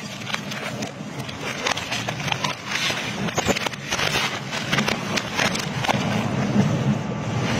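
Twin-shaft industrial shredder chewing up a bicycle: irregular sharp cracks and crunching as the steel frame, spokes and tyre are torn between the cutter discs, over the machine's steady low hum.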